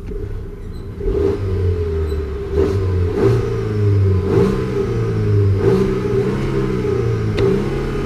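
Volvo V90 T8's turbocharged and supercharged 2.0-litre four-cylinder petrol engine running while parked, revved up and dropping back several times in short blips.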